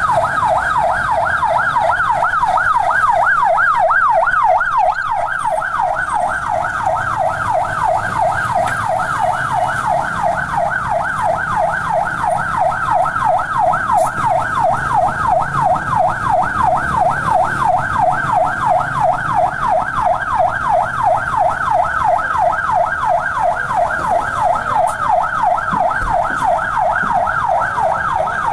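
Electronic emergency-vehicle siren in a fast warble, its pitch sweeping up and down several times a second without a break, over a faint low rumble.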